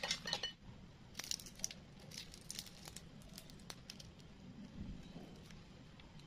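Faint, irregular crackles and clicks of crisp deep-fried prawns being handled and pulled apart by hand, with a light clink of a spatula on the plate near the start.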